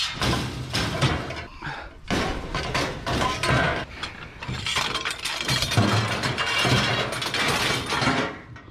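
Scrap metal poles clattering and clanking against each other as they are gathered up and loaded, a dense run of rattling knocks that stops near the end.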